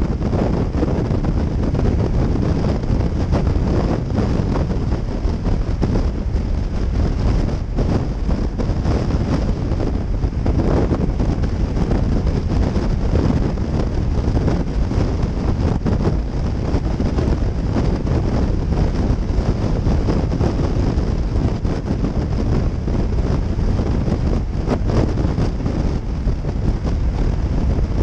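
Steady wind rush buffeting a helmet-mounted camera's microphone on a motorcycle cruising at highway speed, with the bike's engine and tyre noise underneath.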